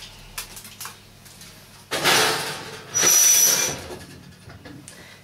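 Foil-lined metal baking tray being slid into an oven: a rustling scrape about two seconds in, then a louder metal scrape with a thin high squeal lasting under a second.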